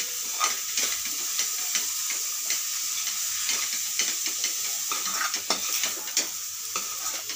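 Green-pea kachori filling sizzling in oil in a kadai while a metal spoon stirs and scrapes through it, with frequent irregular scrapes and taps over a steady sizzle.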